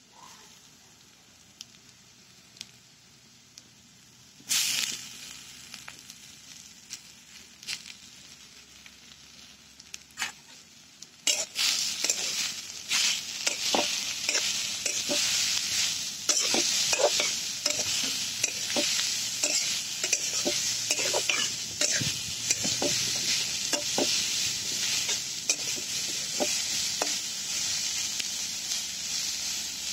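Chopped vegetables frying in hot oil in a metal kadhai. There is a sudden burst of sizzling about four seconds in. From about eleven seconds a metal spoon stirs and scrapes the pan over loud, hissing frying.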